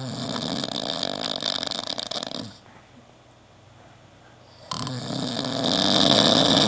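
A man snoring: two long snores, the second building louder toward the end.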